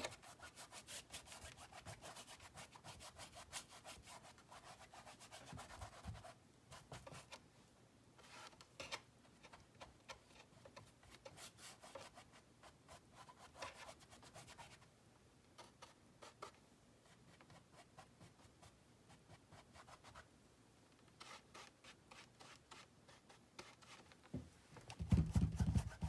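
A wide, stiff paintbrush scrubbing acrylic paint across a stretched canvas: faint, rapid rubbing strokes in runs, with short pauses between them. A louder low rumble comes about a second before the end.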